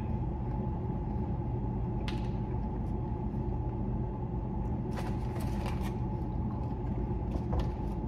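A steady low hum of ceiling ventilation, with a few brief soft clicks and rustles of a man chewing a mouthful of burger and handling the bun, about two seconds in and again around five seconds.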